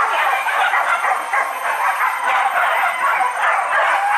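A pack of wild-boar hunting dogs barking and yelping over one another without a break.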